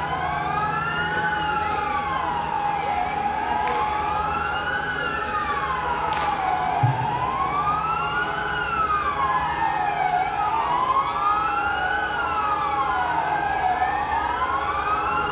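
City air-raid sirens wailing, at least two rising and falling out of step in slow cycles about every three and a half seconds, over a steady held tone. It is the W-Hour siren signal that marks the start of the 1944 Warsaw Uprising. A few sharp cracks cut through.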